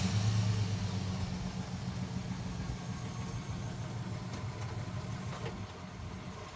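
Chevrolet Silverado pickup truck's engine idling as a steady low hum, growing gradually fainter.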